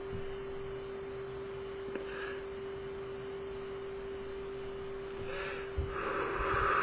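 A person vaping on an electronic cigarette, heard as soft breaths: a faint draw about two seconds in and a louder breathy exhale near the end. Under it runs a steady electrical hum.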